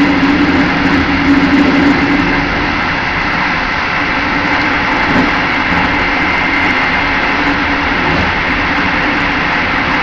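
Steady running noise of a passenger train heard from inside its rear carriage: wheels rolling on the track with a constant rumble and hiss. A low hum fades slightly about two seconds in.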